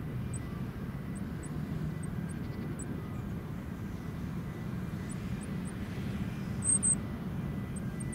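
Goldcrest giving short, very high, thin call notes, scattered irregularly, with two louder ones about seven seconds in. Under them runs a steady low rumble.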